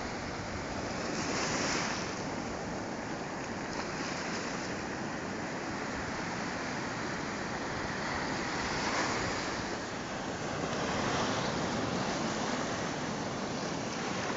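Black Sea surf breaking and washing up the sand in a continuous rush, with a few louder surges as waves break.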